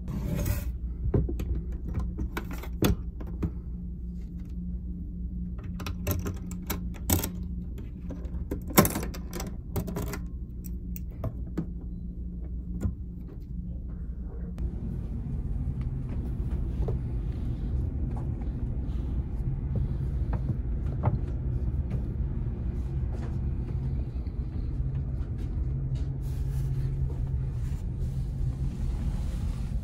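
Steady low drone of a car ferry's engines, with scattered sharp clicks and knocks during the first half. From about halfway the noise grows fuller and a little louder over the drone.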